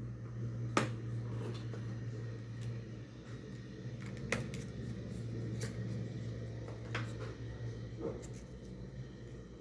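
Sharp clicks and taps of a laptop's plastic casing and parts being handled, about five of them a second or so apart, over a steady low hum.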